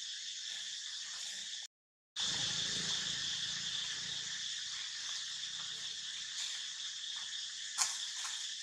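Steady, high-pitched chorus of insects droning without a break, cut to dead silence for about half a second around two seconds in. There is a single sharp tick near the end.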